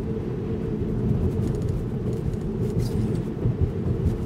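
Steady low road and tyre rumble of a Tesla Model 3 Performance on a wet street, heard inside the cabin, with a short faint hiss about three seconds in.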